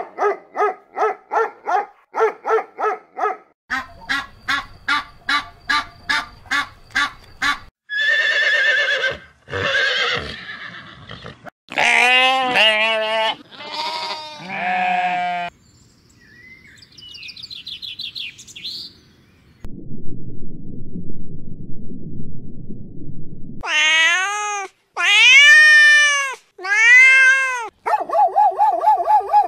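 A series of different animal calls, one clip after another. It opens with rapid pulsed calls at about four a second, then has harsher calls and long calls that rise and fall in pitch, a few seconds of low rumbling noise past the middle, and three strong calls near the end.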